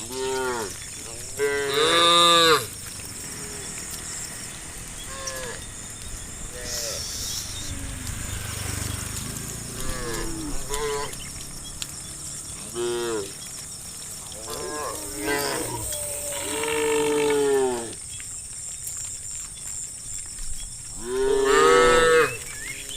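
Cows mooing again and again, one call after another and sometimes overlapping. There are several short moos, and three long, loud ones: one about two seconds in, one about two-thirds of the way through, and one near the end.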